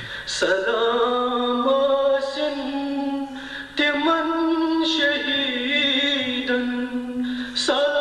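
A man chanting a Kashmiri nauha, a Shia mourning lament, in long held melodic phrases. A new phrase begins near the start, again about halfway through, and once more near the end.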